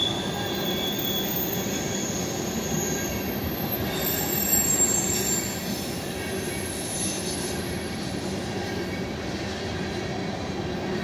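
Freight train cars rolling past close by: a steady rumble of wheels on rail, with thin high-pitched wheel squeals over it during the first half that fade out after about five seconds.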